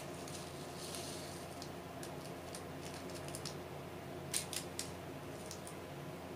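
Light plastic clicks and rattles as small clear plastic storage containers for diamond painting drills are handled. There is a quick run of three sharper clicks a little past the middle.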